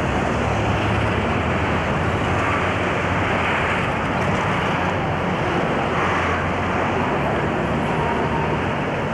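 Steady city street noise: continuous road traffic, with no single sound standing out.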